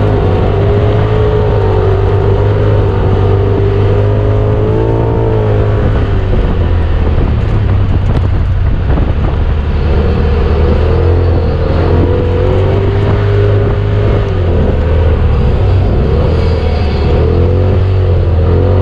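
Side-by-side UTV engine running under load over sand dunes, its pitch rising and falling with the throttle several times over a steady low drone.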